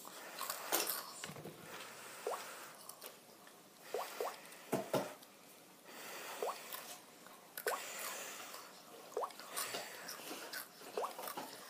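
Noodles being slurped and chewed: repeated short wet slurps, several with a quick rising squeak.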